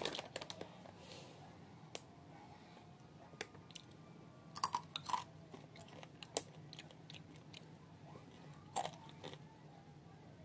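Spicy chips being bitten and chewed close to the microphone: scattered sharp crunches every second or two. A faint steady low hum sits underneath.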